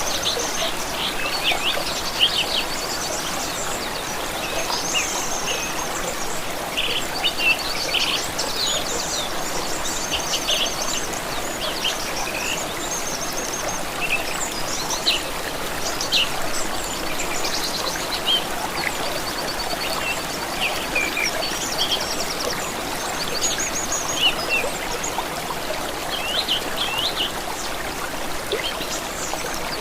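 Several songbirds chirping and trilling over the steady rush of running water from a stream.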